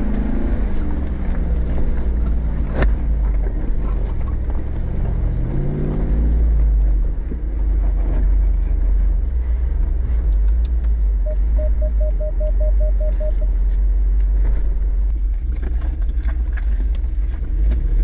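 Off-road vehicle's engine running over a steady low rumble. The revs drop in the first second or so, then rise and fall again around six seconds in, with scattered knocks and scrapes. Past the middle comes a quick run of about ten short beeps.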